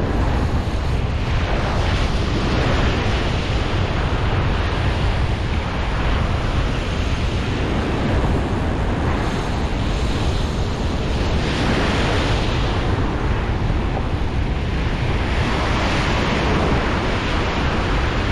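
Ocean surf breaking and washing up the beach: a steady rushing hiss that swells louder several times as waves wash in, with wind buffeting the microphone as a low rumble.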